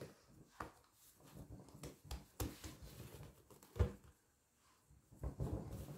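Hands folding and pressing soft, slightly sticky pizza dough on a wooden board: soft pats and dabs, with one louder thump a little before four seconds in, followed by a brief pause.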